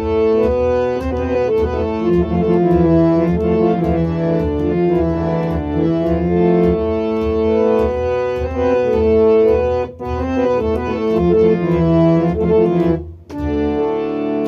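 Harmonium playing an instrumental melody of held, reedy notes over a steady hand-played pot drum beat. The music drops out for a moment near the end.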